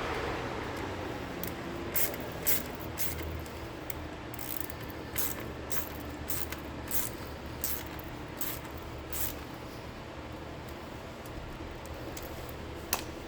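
Scattered sharp metallic clicks and clinks of hand tools and parts being worked on a motorcycle's rear brake pedal assembly, after a brief hiss at the start.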